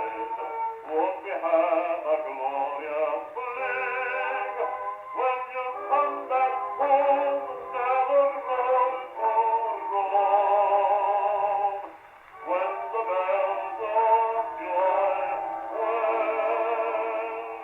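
A c.1916 acoustic-era 78 rpm record playing a man singing with accompaniment, his voice wavering in vibrato. The sound is thin and narrow, with no deep bass or high treble, as such early recordings are. There is a brief pause between phrases about two-thirds of the way through.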